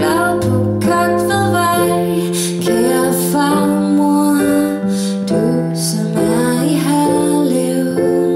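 A woman singing a slow song to her own digital piano accompaniment, the piano holding sustained chords under the vocal line.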